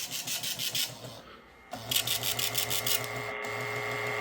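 Raspy, rhythmic crackle from a NOAA weather radio receiver in two short spells, followed by faint steady tones.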